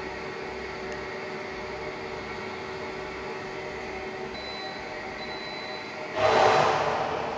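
Unox Bakerlux Shop.Pro convection oven running its fan steadily with a hum. Two short high beeps come from the control panel about four and a half seconds in. About six seconds in the door is pulled open, letting out a louder rush of fan noise that fades.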